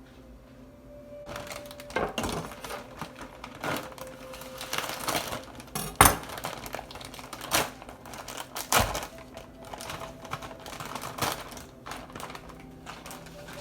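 Cookware clattering as a pot of shrimp macaroni is tended on the stove: a string of irregular knocks and scrapes, the sharpest about six seconds in.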